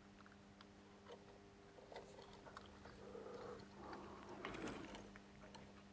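Near silence under a low steady hum, with a few faint ticks and, from about three seconds in, a soft crackle as a soldering iron melts solder onto a transistor's leads on a circuit board.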